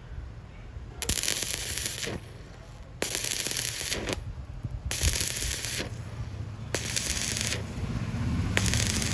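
Stick-welding arc with a 6013 rod on thin tube, crackling in five bursts of about a second each, struck and broken in turn, over a steady low hum.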